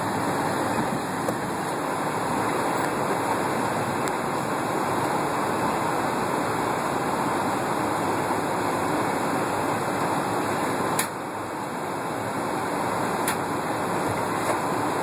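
Steady cabin noise inside a Boeing 757 taxiing, from the engines at idle and the cabin air. Two short clicks come through about eleven and thirteen seconds in.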